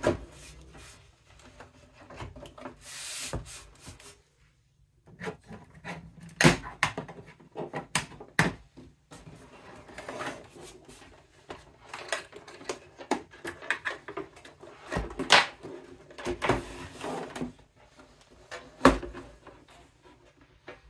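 A VCR's sheet-metal top cover being worked onto its chassis by hand: scraping slides and rubs, with a run of irregular knocks and clicks of metal on metal and of the unit shifting on the table. The loudest knocks come about six seconds in and near the end.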